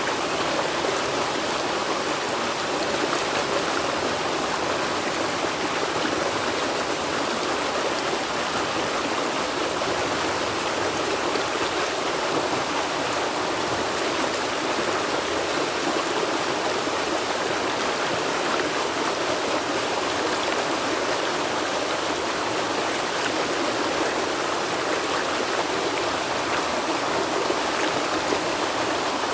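River water flowing and splashing over rocks: a steady, even rushing.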